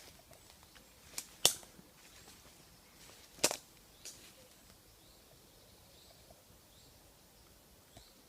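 Twigs and dead branches snapping underfoot while pushing through dense woodland undergrowth: a few separate sharp cracks, the loudest about a second and a half and three and a half seconds in, with smaller ones between and one near the end.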